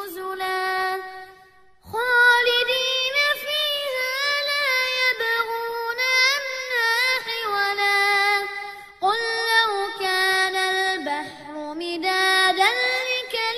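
A child chanting Quranic recitation in melodic murattal style, holding long, wavering notes, with short breath pauses about a second in and again about nine seconds in.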